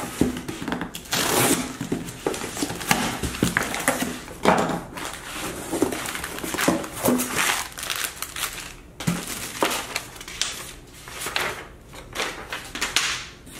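Cardboard shipping box being opened by hand: flaps pulled open and the plastic wrapping and paper inserts inside rustling and crinkling in irregular bursts.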